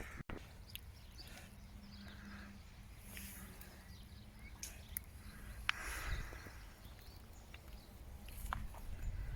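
Faint outdoor ambience: a low rumble of wind on the microphone with scattered light clicks and ticks.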